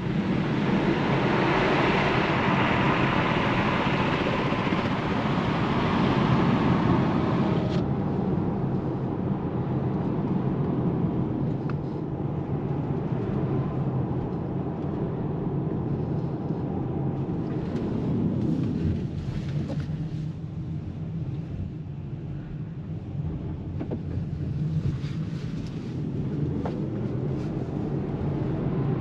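Road and tyre noise with some wind, heard inside the cabin of a Polestar 2 electric car driving at speed. It is louder for the first eight seconds or so, then settles to a steady, lower level.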